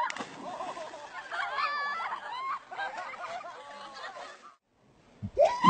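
Several people laughing and shrieking, cutting off suddenly about four and a half seconds in.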